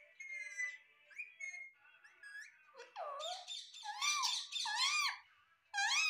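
Pet Alexandrine parakeet giving a run of shrill whistled calls, each swooping up and down in pitch. The calls come sparsely at first, then turn louder and come in quick succession from about halfway, with one more loud burst at the end.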